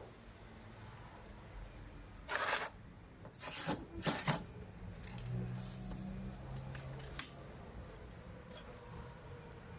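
Hand work on metal parts at a workbench: three short scraping noises between about two and four and a half seconds in, then a brief low hum and a single sharp click.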